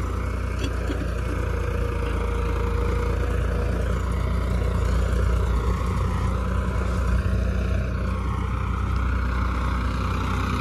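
Farmtrac 60 Super Max tractor's diesel engine running steadily under load, pulling a laser land leveller with a full bucket of soil. A faint steady whine sits over it and fades out about four seconds in.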